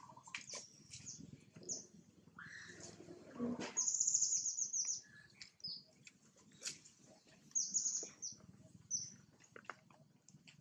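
Small birds chirping: two runs of quick, high-pitched repeated notes, about four and about seven and a half seconds in, with scattered single chirps between.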